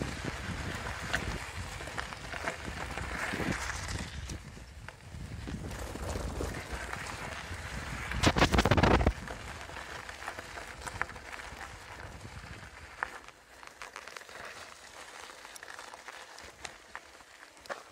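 Bicycle riding along a dirt and gravel track: wind buffeting the microphone and tyres rolling over the rough surface, with a loud surge of wind noise about eight seconds in. It grows quieter later, with scattered sharp clicks and rattles from the bike.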